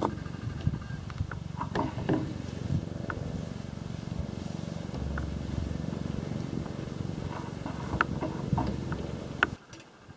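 Clicks and knocks from a metal roof hatch as its latches are undone and the lid is lifted off, over a low steady rumble. The sound cuts off abruptly near the end.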